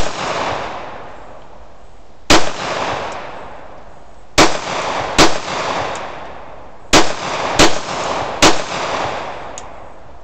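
Glock 17 9 mm pistol firing single shots, about seven at uneven intervals of half a second to two seconds, each shot followed by about a second of echo dying away.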